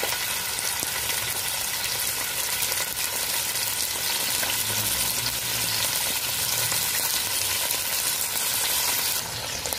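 Whole marinated chicken searing in hot olive oil in a pot: steady sizzling with fine crackling of the oil.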